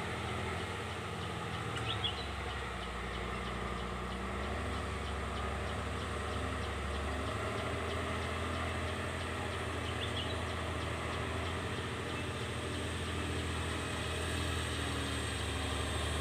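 Diesel engine of a loaded Volvo FL10 logging truck running at low revs as the truck moves off slowly. Its pitch shifts slightly and it grows a little louder near the end.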